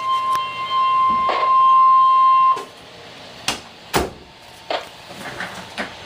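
Emergency alert tone: a single steady electronic tone near 1 kHz that cuts off about two and a half seconds in. Faint radio hiss with a few sharp clicks follows.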